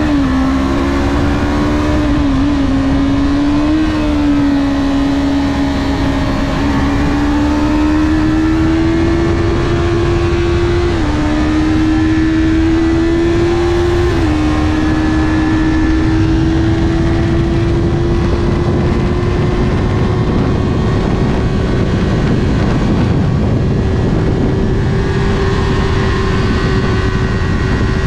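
Yamaha YZF-R3's 321 cc parallel-twin engine running hard under acceleration, with wind noise on the microphone. Its pitch climbs slowly, drops sharply twice in the middle as it is shifted up a gear, then climbs again.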